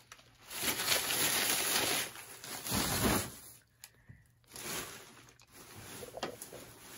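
Rustling and handling noise in bursts as purchased items and their packaging are moved about, the longest about half a second in and another around the middle.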